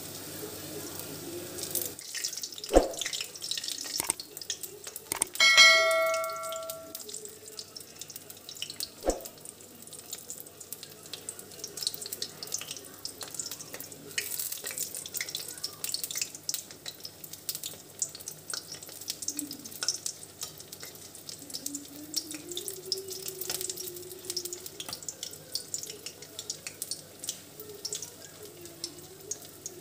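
Batter-coated kakrol (spiny gourd) slices deep-frying in hot refined oil in a wok, sizzling and crackling steadily. A few sharp knocks of a utensil against the wok come about 3 and 9 seconds in. A brief ringing tone, the loudest sound, sounds about five and a half seconds in.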